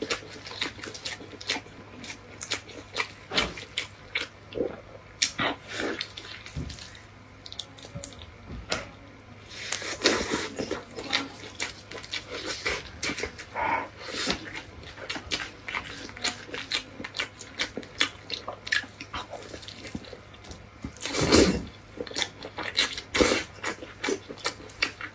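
Mouth sounds of eating spicy noodles, picked up by a clip-on microphone: wet chewing and lip smacking in irregular clicks, with louder stretches about ten seconds in and again about twenty-one seconds in.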